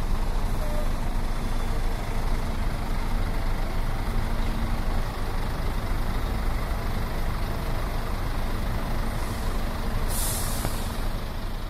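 Diesel engine of a three-axle double-decker coach running steadily as the bus pulls slowly away, with a short sharp hiss of air brakes about ten seconds in.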